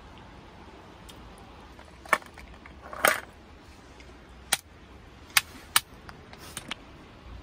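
A river stone knocking on a cooked lobster claw laid on a rock, cracking the shell open: about seven sharp, irregularly spaced knocks starting about two seconds in, the one near three seconds longer and crunchier.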